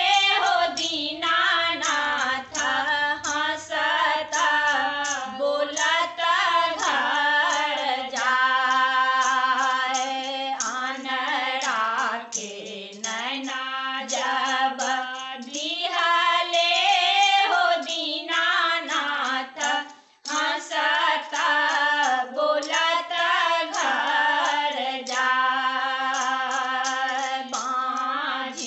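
Three women singing a Maithili Chhath devotional folk song together, without instruments, with a brief break about two-thirds of the way through.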